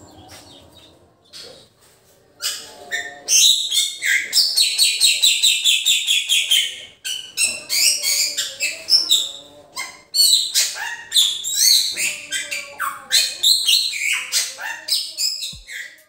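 Bali myna singing: after a quiet first couple of seconds, loud, high chattering and whistled phrases, including a long rapid run of repeated notes that falls slightly in pitch, then varied calls until just before the end.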